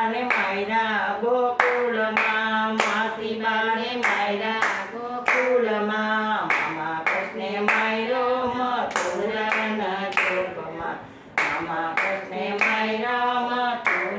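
Two women singing a Gujarati devotional bhajan, keeping time with steady hand claps a little under two a second. The singing breaks off briefly about eleven seconds in while the clapping goes on.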